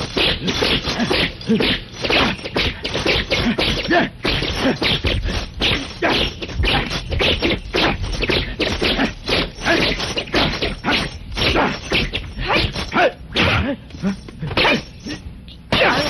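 Martial-arts film fight sound effects: a rapid, unbroken run of dubbed punch and blow impacts, several a second.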